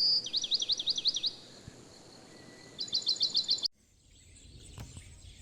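A songbird singing: a high whistled note followed by a quick run of repeated notes, and then a second run of repeated notes. The song cuts off abruptly about two-thirds of the way through, leaving a faint outdoor background.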